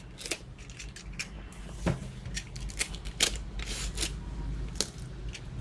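Parcel packaging being handled and opened by hand: irregular crinkles, scrapes and sharp clicks, over a steady low hum.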